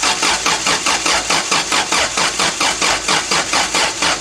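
Starter motor cranking a Toyota 4Y four-cylinder engine in an even, pulsing rhythm without it firing; the crew suspects the engine has no spark.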